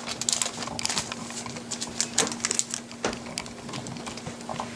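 A Yu-Gi-Oh Magic Ruler foil booster pack and its trading cards being handled: scattered light clicks and rustles, over a faint steady hum.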